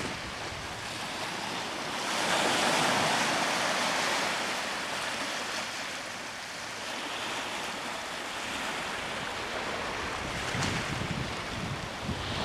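Small sea waves breaking and washing up a pebbly beach, with a louder surge of surf about two seconds in. Wind buffets the microphone with low rumbling gusts near the end.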